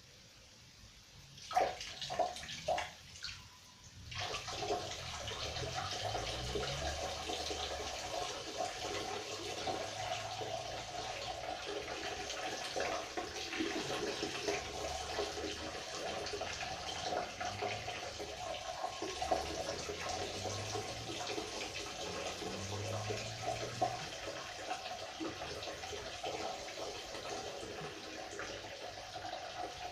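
A person urinating: a few short spurts about two seconds in, then a steady stream of urine splashing into water that keeps going.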